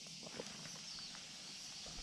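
Faint, short scuffs and rustles as a stray cat is stroked and steps away across asphalt, over a steady high outdoor hiss.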